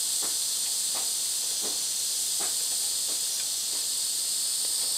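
Steady high hiss of a burning gas soldering iron's flame, with a few faint taps.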